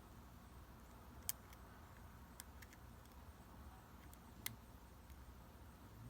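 Near silence with a few faint, sharp clicks as a lock pick works the pins of a lock under tension: one about a second in, two or three around the middle, and one more past four seconds.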